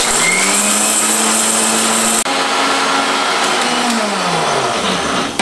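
Electric mixer grinder with a steel jar grinding dried Byadgi chillies into powder. The motor starts suddenly at full speed and runs steadily, then slows down and stops near the end.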